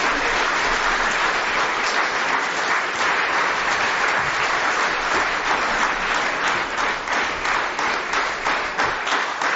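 Audience applauding steadily, thinning into more separate claps near the end.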